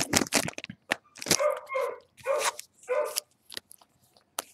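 A dog gives about five short barks in quick succession, with a few light clicks of cards being handled.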